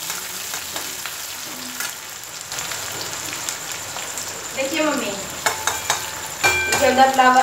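Onions frying in hot oil in an iron kadhai, a steady sizzle, stirred with a spatula that clicks and scrapes now and then.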